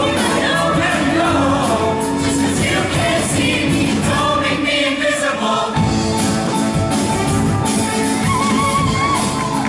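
Show choir singing a full-voiced number with instrumental accompaniment. The low end of the accompaniment drops away briefly about five and a half seconds in, then comes back.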